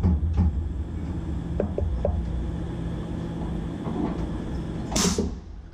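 Tormach PCNC 1100 CNC mill running, a steady low hum with a few light knocks. About five seconds in comes a short, loud burst of hiss that dies away quickly.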